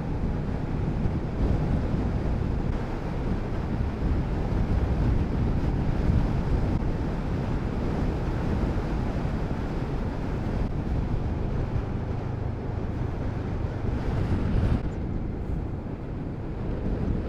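Wind rushing and buffeting over the microphone on a moving motorcycle, with the Kawasaki Z650RS's parallel-twin engine running underneath. The noise stays steady and low, easing a little near the end.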